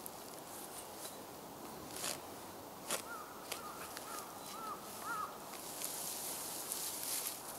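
A spade cutting and scraping into soil and dry straw, with sharp strikes about a second apart and a rustling scrape near the end. A crow caws about five times around the middle.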